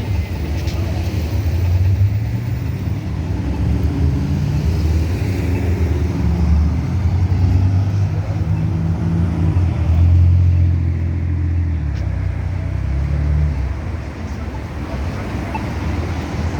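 Street traffic: a steady low rumble of vehicle engines passing on a busy road, swelling loudest around ten seconds in.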